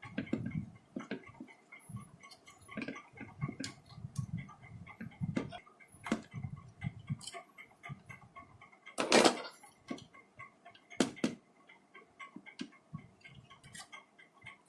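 Irregular light clicks and knocks of small parts being handled while a replacement SMPS power-supply board is fitted into a set-top box. The loudest knock comes about 9 seconds in, with another about 11 seconds in.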